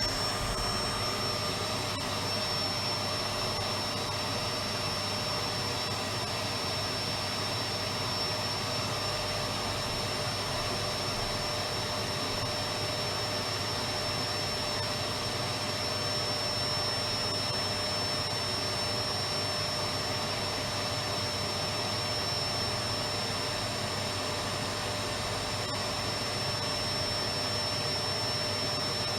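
Electric vacuum cleaner running steadily: an even motor whine over the hiss of rushing air, holding the same pitch throughout.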